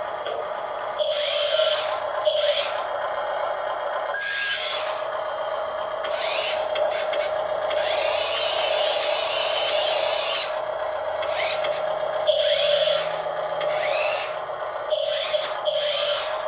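Electric motors and gears of a 1/14-scale Double E E594 remote-control skid steer whining in repeated bursts of one to two seconds, the pitch rising as each starts, over a steady hum; the longest burst runs from about eight to ten and a half seconds in.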